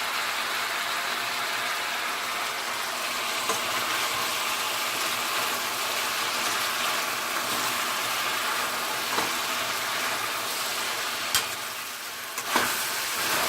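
Chicken pieces frying in oil with masala in a pan: a steady sizzle. A few sharp knocks of the stirring spoon against the pan, the loudest near the end.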